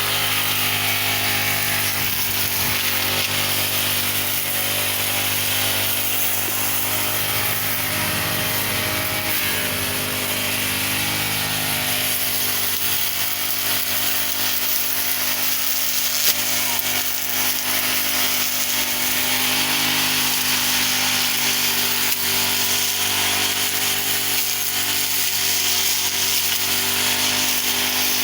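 Brush cutter (grass trimmer) engine running steadily at high speed while trimming grass, with one brief click about halfway through.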